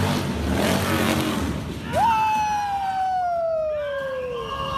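Harley-Davidson motorcycle doing a burnout, the engine held at high revs and the rear tire spinning on the pavement; the noise stops abruptly about two seconds in. Then a long wail that falls slowly in pitch.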